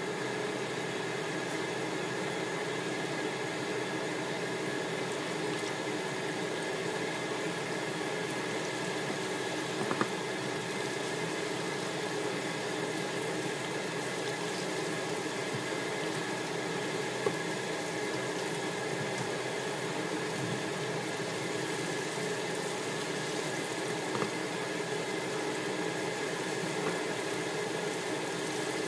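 Chicken pieces deep-frying in a pan of hot oil, a steady sizzling and bubbling, with a few light taps now and then.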